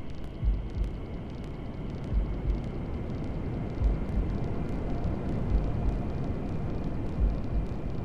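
Steady hair-dryer white noise with a recorded heartbeat under it: a low double thump, lub-dub, about every 1.7 seconds, five beats in all.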